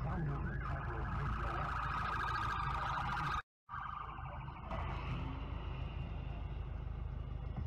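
Police car siren: a wail sweeping up and down a few times a second, then switching to a fast warble held at one high pitch. The audio drops out for a moment partway through, and after it the siren goes on more faintly over the low rumble of traffic.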